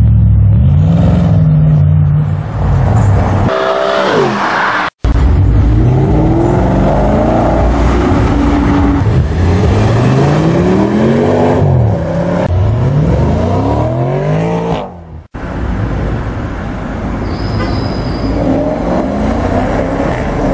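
Performance cars accelerating hard past one after another, their engines revving up in repeated rising sweeps through gear changes, with two abrupt breaks between cars. First a Mercedes-Benz SL (R230), then an Audi RS6 Avant (C6) with its twin-turbo V10 pulling through several gears.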